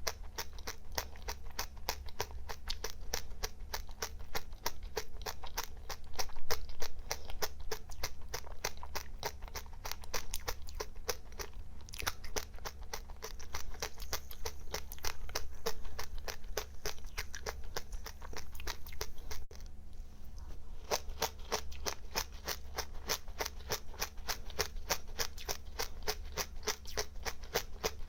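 Close-up chewing of crunchy dry seeds: rapid, regular crunches that pause briefly about two-thirds of the way through, over a steady low hum.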